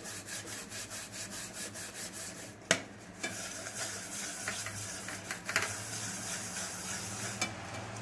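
A scrub pad rubbing over a stained cooking vessel in quick, repeated strokes, with one sharp knock nearly three seconds in.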